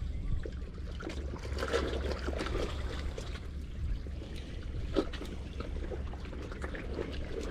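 Seawater sloshing and trickling in the gaps between breakwater tetrapods over a steady low rumble, with a sharper slap about five seconds in.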